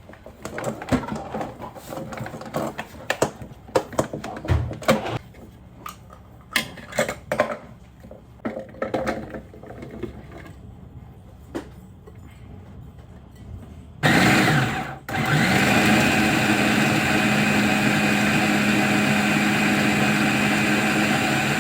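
Kitchen clatter of utensils and containers being handled, then an electric food grinder's motor starts, runs for about a second, stops briefly, and starts again, running steadily to grind food coarsely.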